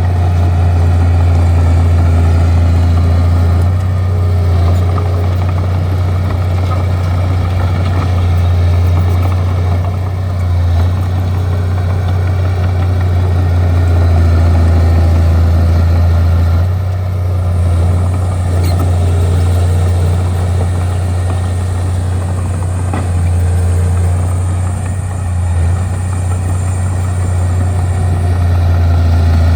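Bulldozer's diesel engine running steadily under load, a strong low hum with small rises and falls in loudness.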